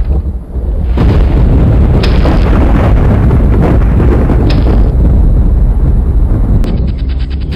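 A run of loud explosions: a first blast about a second in, further sharp blasts about two and four and a half seconds in, with rumbling between them.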